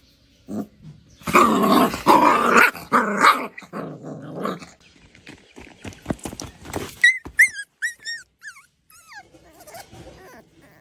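A puppy growling and yapping in short, rough, loud bursts. These are followed by scattered clicks and a quick run of short, high, wavering squeaks.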